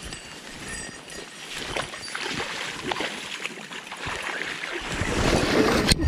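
A person pushing through tall grass and stepping into a shallow stream: irregular rustling and brushing of stems, growing louder near the end with sloshing steps in the water.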